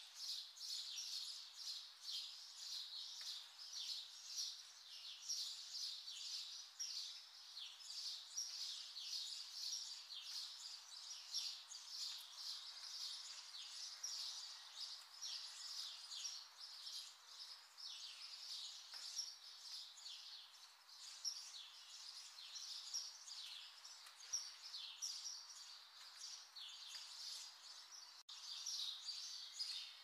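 Many small birds chirping at once: a dense, unbroken chorus of short, high chirps over a faint hiss.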